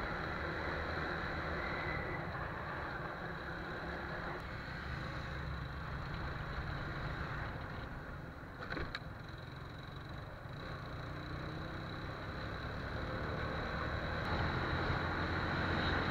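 TVS Apache RTR 180's single-cylinder four-stroke engine running steadily at cruising speed, mixed with road and wind noise. A brief click about nine seconds in, and the noise grows a little louder near the end.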